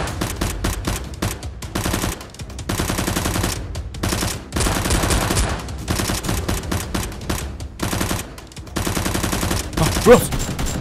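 Rapid automatic-gunfire sound effects in several bursts, with short breaks of about half a second between them, laid over Nerf blasters being fired.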